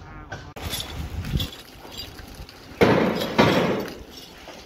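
Water from a hose spraying onto a burlap-wrapped concrete column, wetting the wrap to keep the concrete curing: a loud rushing splash starting about three seconds in and lasting about a second.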